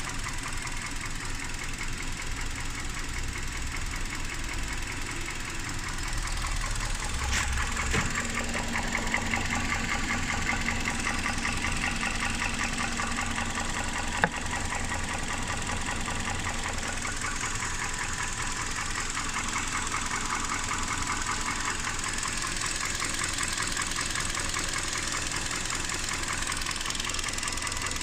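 Hyundai G4KD 2.0-litre four-cylinder petrol engine running with a dense, rapid ticking rattle, the 'ratchet' sound it makes on the throttle. The owner takes it for piston knock after an overhaul with cast-iron cylinder sleeves. The engine gets a little louder about six seconds in, and there is a single sharp click near the middle.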